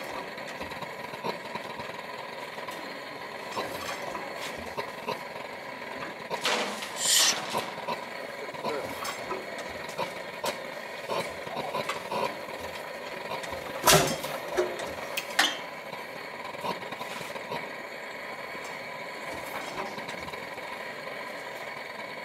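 Single-cylinder hot-bulb Lanz Bulldog engine being turned over by hand at its flywheel before it fires: scattered metallic clicks and knocks over a steady mechanical hum, with a few louder knocks about a third of the way in and again about two-thirds in.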